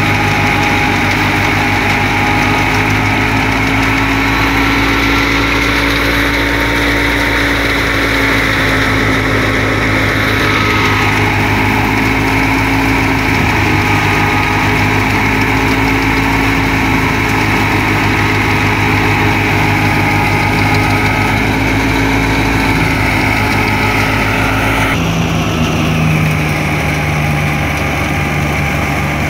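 Wheat thresher belt-driven by a Ghazi 65 hp diesel tractor, running at a steady working speed: a loud, even mechanical drone of the engine and the spinning threshing drum. The pitch of the drone changes abruptly near the end.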